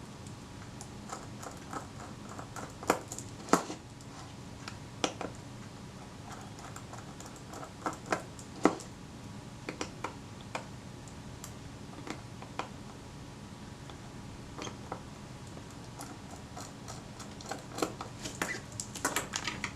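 Light, scattered clicks and taps of a small screwdriver and metal parts as the four small screws holding a camera lens mount to the lens body are taken out, with a quicker run of clicks near the end. A faint low hum runs underneath.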